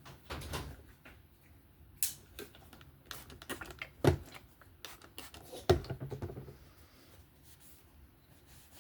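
A folding knife and small tools handled on a work surface: a few sharp clicks and knocks, the loudest about four seconds in, with small ticks and rustling between.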